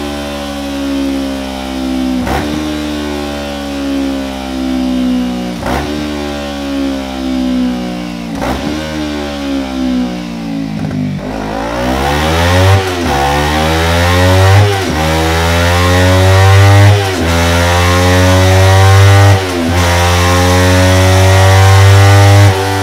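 Kawasaki Ninja 300 parallel-twin engine running on a dyno through a Delkevic stainless steel tri-oval silencer. For the first half its pitch falls slowly, broken by a few sharp clicks. From about halfway it revs up in a series of rising pulls, each cut off by a sudden drop in pitch like a gear change, and it grows louder toward the end.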